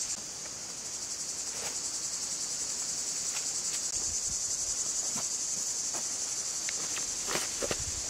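Insects trilling in a steady, high-pitched, finely pulsing chorus, with a few faint taps underneath.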